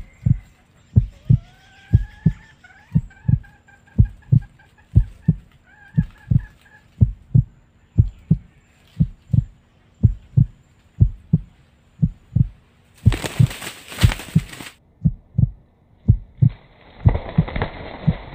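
Steady, evenly repeating heartbeat thumps, a suspense sound effect laid under the footage. A red junglefowl rooster calls faintly in the first few seconds. About thirteen seconds in comes a loud burst of wing-flapping as two roosters clash, followed by a rustling scuffle in dry leaves.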